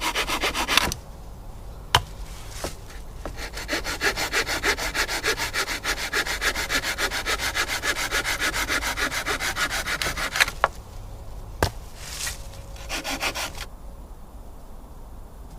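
A hand saw cutting through wood in rapid, even back-and-forth strokes. It saws in three spells: stopping about a second in, running again from about three seconds in to about ten and a half, then a short burst near the end. A couple of sharp knocks come in the pauses.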